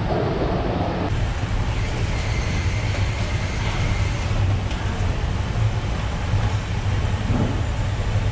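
Steady low rumble with a strong hum underneath, with a faint thin tone from about two to four seconds in.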